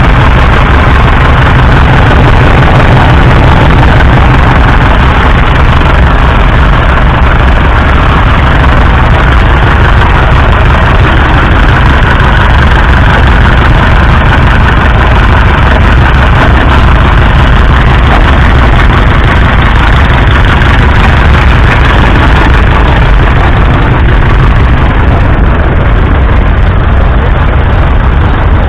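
1977 Massey Ferguson 575 tractor's 3.9-litre four-cylinder diesel engine idling steadily, heard close up.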